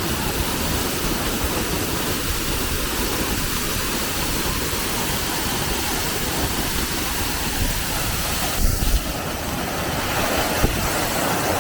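Steady rush of falling water from a waterfall close by.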